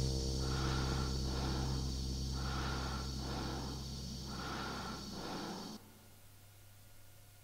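End of an electronic dance track played from a vinyl record: sustained synth chords over a deep bass tone, with a filtered noise swell about every two seconds, slowly fading. The music stops abruptly about six seconds in, leaving only faint record surface noise and a low hum in the groove between tracks.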